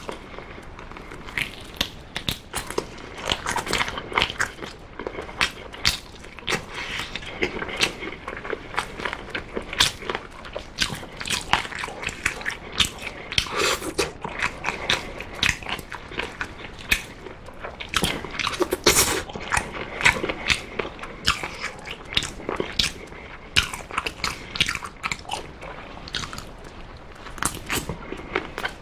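Close-miked mukbang eating sounds: a person biting and chewing oven-baked chicken drumstick meat off the bone, a dense, irregular run of sharp mouth clicks and smacks.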